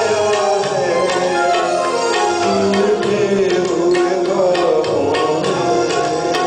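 A man singing into a microphone, his voice gliding between held notes, accompanied by tabla strokes in a steady rhythm.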